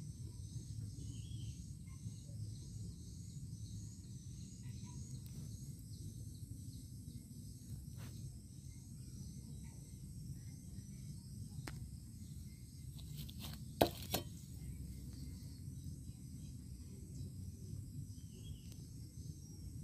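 Outdoor ambience of insects chirring in a high, rhythmic pulse over a low steady rumble. A couple of sharp clicks come a little past the middle.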